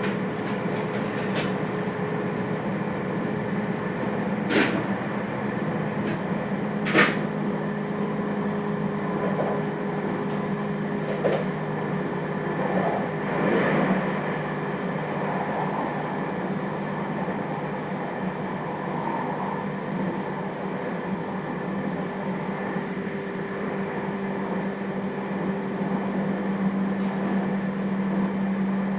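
Interior sound of a JR Hokkaido 721 series electric train, heard in the motor car KuMoHa 721-3018: a steady electrical hum over a noise bed, with two sharp knocks about four and a half and seven seconds in.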